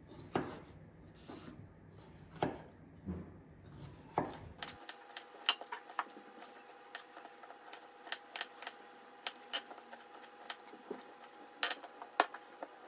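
Kitchen knife cutting limes into small pieces on a wooden cutting board: a string of irregular sharp knocks as the blade strikes the board.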